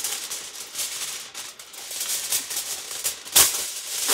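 A sheet of Reynolds Wrap aluminum foil being pulled from its box, torn off and handled, crinkling and crackling throughout, with one sharp, loud crackle about three and a half seconds in.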